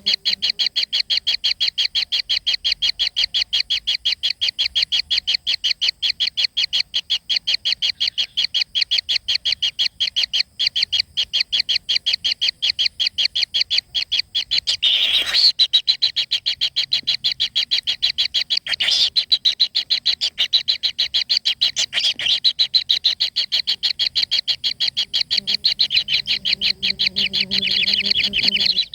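A fast, even, unbroken train of high chirping pulses from a calling animal, with a few sharp clicks over it about halfway through and later.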